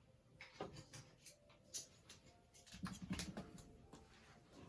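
Faint handling noise: scattered light clicks and knocks of small objects being picked up and moved, with a brief low rustle about three seconds in.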